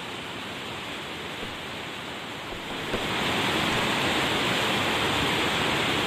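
Steady rushing noise of a flood-swollen river in spate after heavy monsoon rain. It steps up louder about halfway through.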